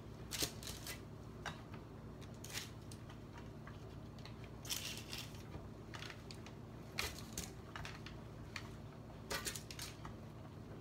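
Faint, scattered light clicks and scrapes of roasted potato slices being laid by hand into a baking dish, a few every couple of seconds over a low steady kitchen hum.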